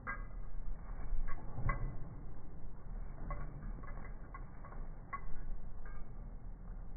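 German shepherds playing rough with toys on a lawn: scattered short squeaks and clicks, loudest early on, over a low steady rumble.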